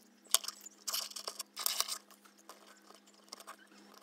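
Close-up handling of a small prank exploding pen. A sharp click comes about a third of a second in, then two bursts of scraping and rustling, then fainter small clicks as fingers work its metal spring-and-detonator parts.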